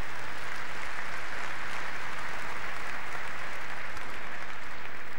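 Arena crowd of spectators applauding a won game, a steady dense clapping.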